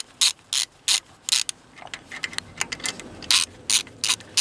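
Socket ratchet on a short extension clicking in quick back-and-forth strokes, roughly two or three a second with a short pause about a second and a half in, as a 10 mm bolt that is loose but not yet finger-loose is wound out.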